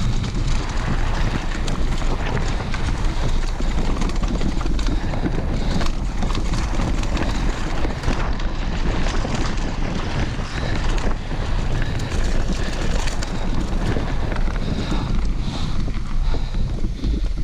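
Wind buffeting an action-camera microphone during a downhill mountain-bike run, with tyre roar over dirt and frequent clattering knocks from the bike over rough ground.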